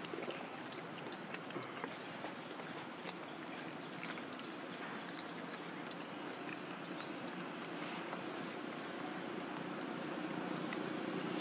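Outdoor ambience with small birds giving short, high, upward-sweeping chirps here and there. Underneath is a steady low drone that grows louder near the end.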